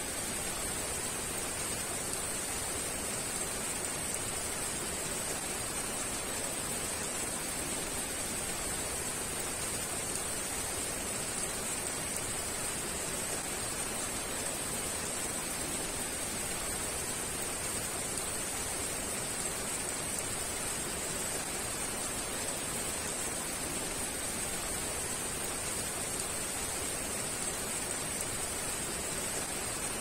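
Heavy rain falling steadily: an even, unbroken hiss with a bright high edge.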